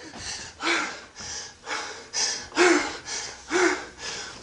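A person breathing hard and fast, about two noisy breaths a second, a few of them with a short catch of the voice.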